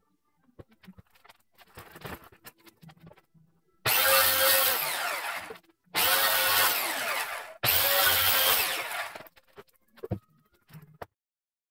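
Handheld circular saw cutting through wooden pallet boards in three loud cuts of about two seconds each, with short breaks between them, trimming the pallet down to width. A few light knocks follow.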